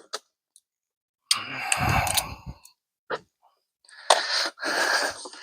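A man's heavy breathing: two long, noisy exhalations like sighs, the second starting about four seconds in, from someone overheated while working.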